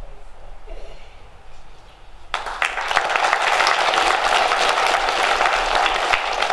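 A hall full of children clapping, breaking out suddenly about two seconds in and going on steadily after a quieter start.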